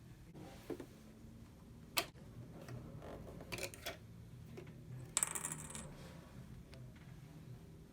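Small clicks and rattles from hands working a sewing machine's parts: a sharp click about two seconds in, a cluster of clicks a little later, and a brief bright metallic jingle about five seconds in.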